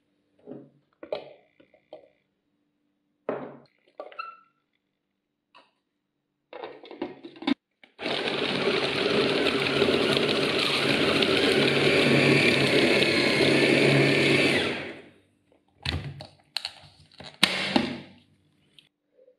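Electric food chopper running for about seven seconds, mincing raw chicken thigh with garlic and seasonings, a steady motor-and-blade noise that grows slightly louder and then cuts off. Before it come a few short knocks and clinks, and after it a clatter as the motor unit and lid come off the plastic bowl.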